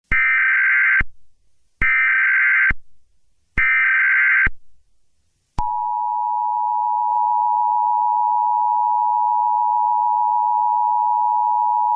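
Emergency Alert System SAME header: three short data-tone bursts, each about a second long with a second's gap between them. They are followed, about five and a half seconds in, by the EAS attention signal, a loud steady two-tone beep that keeps going.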